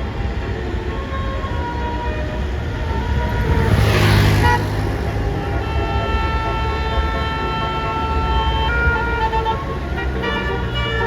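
A bus's Basuri telolet horn plays a melody of held notes that change pitch, over the low rumble of the bus engine. A loud rushing noise rises and falls about four seconds in.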